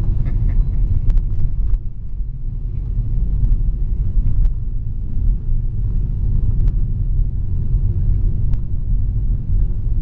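Road noise inside a car driving on a gravel road: a steady low rumble of tyres and engine, with a few sharp clicks scattered through it.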